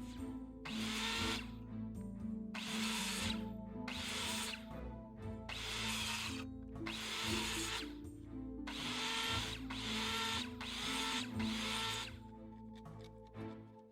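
A tool working in about ten short, harsh bursts roughly a second apart, over background music, as a small set of wooden-type steps is built; the bursts stop near the end.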